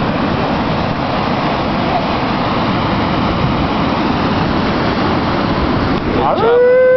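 Sea surf and wind making a steady rushing noise. About six seconds in, a horn slides up into one long, steady note that becomes the loudest sound.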